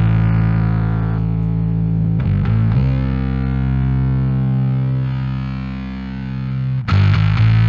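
Bass guitar played through a Fender Blender fuzz pedal: long, sustained fuzz notes, with a new note struck a little under three seconds in and another near the end. The top end drops away about a second in as the pedal's tone knob is turned.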